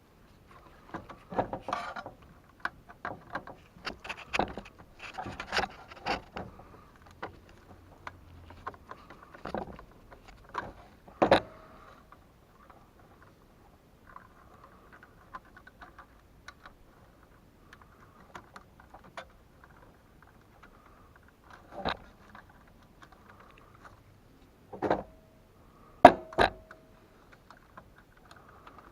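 Handling noises from work on a gas furnace: irregular clicks, taps and knocks of tools and metal parts, a few with a short metallic ring, the loudest about eleven seconds in and twice near the end.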